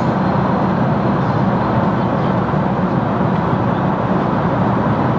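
Steady roar of an airliner cabin in flight: engine and airflow noise, even and unchanging.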